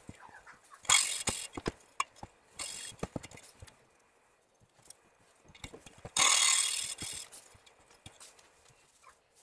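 Valves being lapped into the seats of a Yamaha XS650 cylinder head with lapping paste: short bursts of gritty scraping, a longer one about six seconds in, with light knocks and clicks between them.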